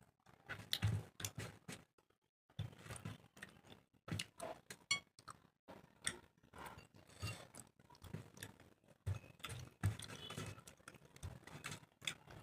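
Close-miked eating sounds: chewing and lip-smacking of rice and curry, in irregular wet clicks and soft thumps.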